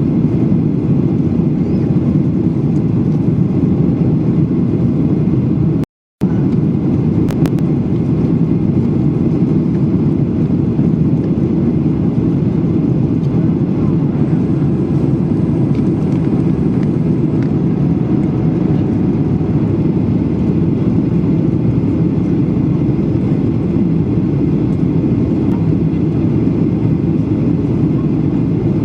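Jet airliner cabin noise in flight: a loud, steady, low rush of engines and airflow. It cuts out to silence for a split second about six seconds in.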